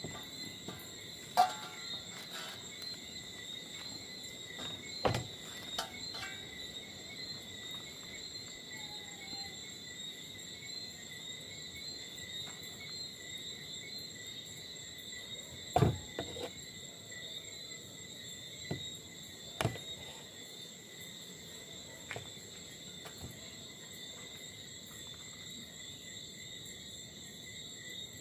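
Night insect chorus of crickets: a steady high chirring that doesn't change, with a few scattered sharp clicks and knocks, the loudest about a second and a half in and about sixteen seconds in.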